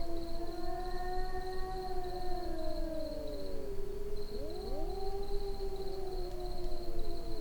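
Cat crying in long, drawn-out yowls, several overlapping cries gliding up and down in pitch. One long cry fades out about halfway through, and a second rises in just after and is held.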